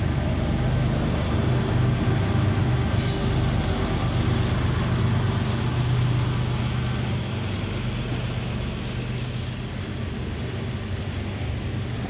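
Two mid-train diesel-electric freight locomotives passing close by, their engines running with a steady low hum over the rumble of wheels on rail. The engine sound fades after about seven seconds as boxcars follow.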